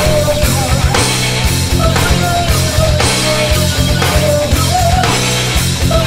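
Loud rock music with drums keeping a steady beat and a sustained melody line over it.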